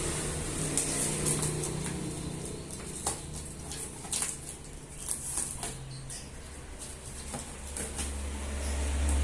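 Packaging being handled during an unboxing: irregular rustling, scraping and light clicks, over a steady low hum.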